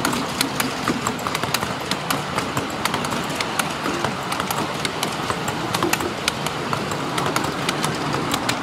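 Miniature-railway ride-on passenger carriages rolling along the track: a steady rumble with many irregular sharp clicks and clacks of the wheels on the rails, several a second.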